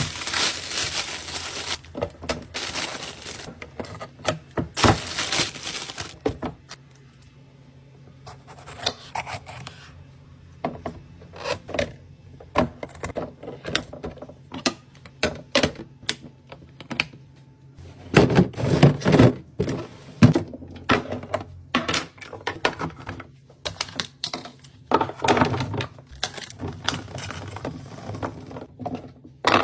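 Fridge-restocking handling sounds: a run of clicks, taps and thunks as containers and packages are set down and arranged, with bursts of rustling near the start and a few heavier thuds past the middle.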